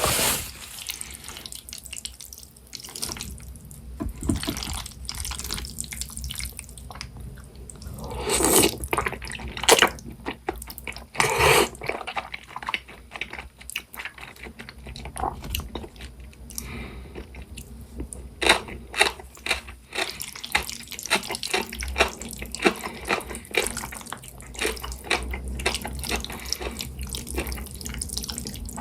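Thick jajangmyeon noodles in black-bean sauce being eaten close to the microphone: a steady run of wet, sticky mouth and noodle sounds, with louder slurps about 8 and 11 seconds in.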